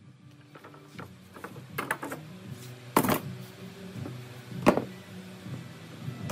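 Bar clamps being removed and tools handled on a wooden workbench: a series of metal clanks and knocks, the two loudest about three seconds and four and a half seconds in.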